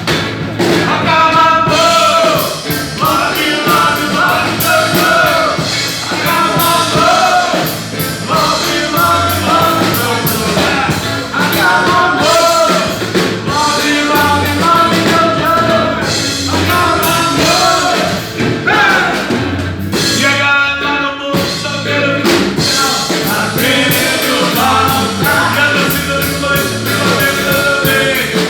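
Live band playing rock music, with a lead singer over drum kit and instruments.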